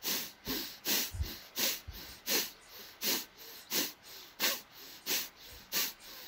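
Kapalabhati (fire breathing): a woman's short, forceful exhalations through the nose, driven by sharp contractions of the belly, repeated in an even rhythm of about three every two seconds, with the in-breath happening passively and near silently between them.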